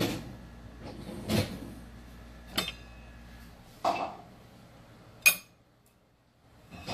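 Kitchen dishes and cupboard doors being handled: about five separate knocks and clinks, the sharpest about three-quarters of the way through. A low steady hum underneath cuts off about halfway.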